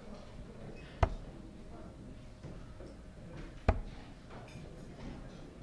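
Steel-tip darts striking a Nodor Supamatch 2 bristle dartboard: two sharp thuds about two and a half seconds apart.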